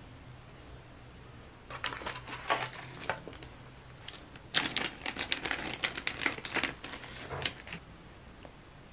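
Clear plastic packaging crinkling and rustling with sharp clicks as surgical instruments are pulled out of their wrapper, in a short burst about two seconds in and a longer, busier one from about four and a half to seven and a half seconds.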